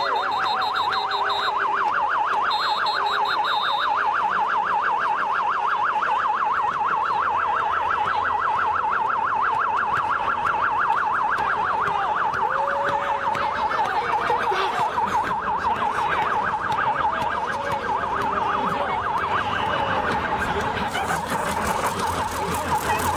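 Police car siren on a fast yelp, sweeping up and down several times a second, over the noise of a crowd.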